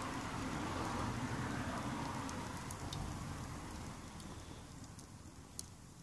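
Kiln-dried kindling burning in a metal bucket fire pit: a steady rush of flame with scattered sharp crackles and pops, the loudest pop about five and a half seconds in. The rush fades through the second half.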